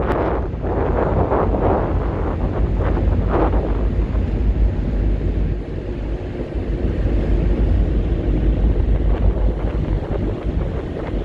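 Wind buffeting the microphone, in strong gusts over the first few seconds and then settling, over a steady low rumble.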